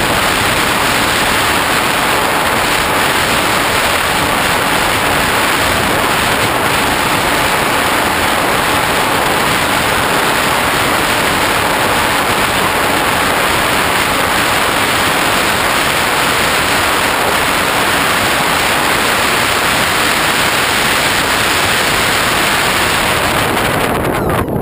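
Loud, steady rushing wind noise on a GoPro's microphone as it rides on a Hobbyking Bixler RC model plane in flight.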